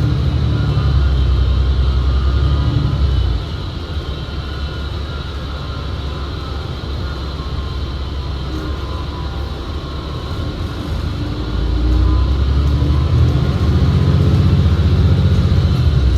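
Cabin sound of a 2019 New Flyer XD60 articulated bus driving, with a heavy low drivetrain rumble. The rumble drops off sharply about three seconds in and builds again near the end, like the bus easing off and then pulling away. A thin, steady high whine runs over it, the odd transmission sound that largely covers the engine.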